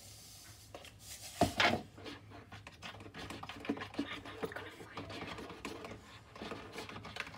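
Plastic spoon scraping and tapping in a plastic cup while stirring a dish-soap slime mixture, an irregular run of small clicks and scrapes, with one louder knock about a second and a half in.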